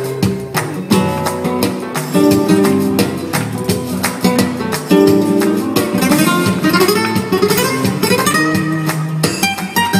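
Flamenco music on acoustic guitar, strummed and picked, with sharp percussive strikes throughout.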